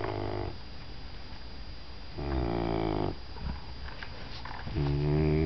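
Doberman puppy snoring: drawn-out, pitched snores about every two and a half seconds.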